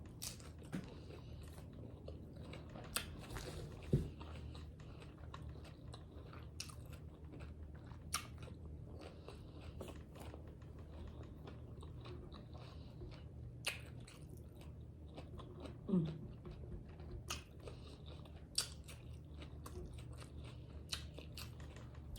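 Close-up eating sounds of a person biting and chewing tacos: wet chewing with scattered crunches and mouth clicks over a steady low hum.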